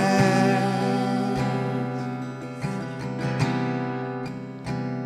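Slow worship-band music: a sustained chord rings under a few acoustic guitar strums and gradually fades.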